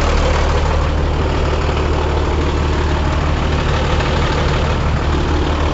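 Scania P94 truck's nine-litre six-cylinder diesel engine idling steadily.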